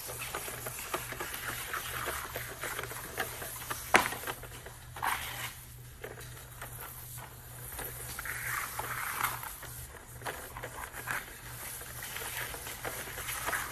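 Flexible drain-cleaning cable being fed by hand into its oiled housing on a Mini Miller machine: a sliding, scraping rustle with scattered small clicks and one sharp knock about four seconds in, over a steady low hum.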